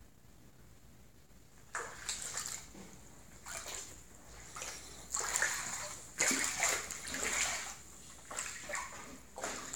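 Footsteps wading through shallow standing water flooded over a kitchen floor: a series of irregular splashes, loudest in the middle.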